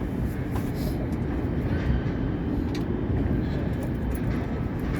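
Steady wind buffeting the microphone on a sailboat's open deck, a dense low rumble with a few faint ticks.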